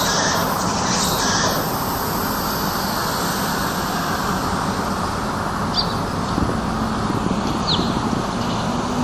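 Street ambience: a steady wash of road traffic noise, with a low engine hum coming in after about six seconds and a few short high chirps near the middle and end.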